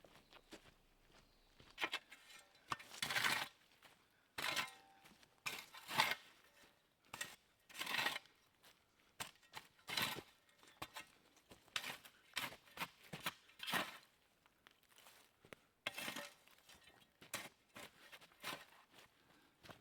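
Camp gear rustling and crinkling in irregular bursts, about one every second or two, as it is handled and packed away.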